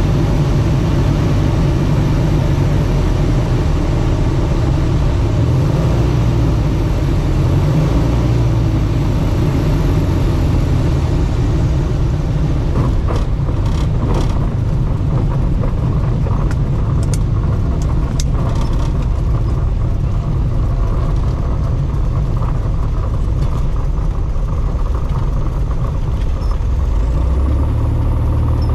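Carbon Cub FX-3 light aircraft's piston engine and propeller running steadily in flight, a loud even drone, with a few brief faint clicks about halfway through.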